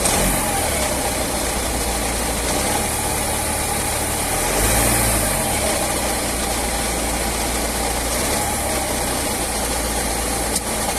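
Volkswagen Multivan T5's 180 hp four-cylinder diesel engine running steadily at idle, with a short rise and fall in pitch about halfway through. It carries an extraneous noise whose origin, engine or DSG gearbox, the owner cannot place.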